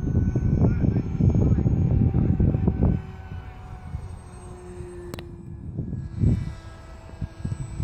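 The electric motor of a radio-controlled Vulcan model plane whines at a steady pitch as the plane climbs away on its maiden flight. Heavy wind rumble on the microphone covers the first three seconds. A single sharp click comes about five seconds in.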